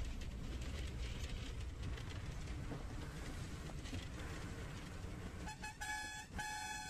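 Low rumble of a moving bus's engine and road noise from inside the bus. About five and a half seconds in, a vehicle horn starts blowing a steady pitched tone that breaks off briefly twice.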